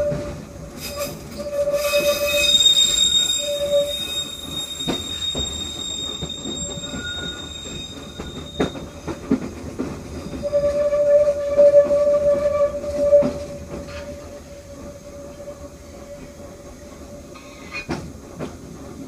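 Metro train wheels squealing on curved track and switches, with a higher, thinner squeal over the first half and a lower squeal coming back about ten seconds in, and scattered clicks as the wheels cross rail joints and switch points.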